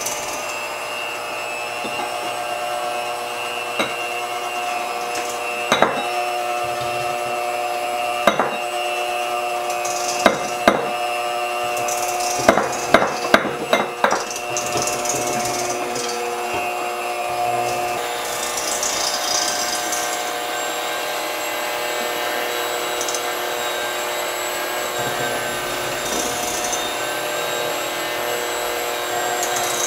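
Eggs being tapped against the rim of a small bowl to crack them: a string of sharp taps, most of them in a quick cluster about halfway through, over a steady hum.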